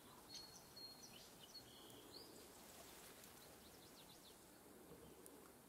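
Near silence: faint outdoor ambience with a few thin, high bird whistles in the first couple of seconds and some short chirps around the middle.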